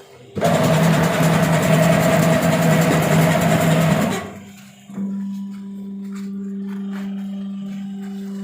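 Silage baling machine running loudly with a noisy rush and two steady tones for about four seconds, then cutting off. After a brief pause, a steady low electric hum starts and holds.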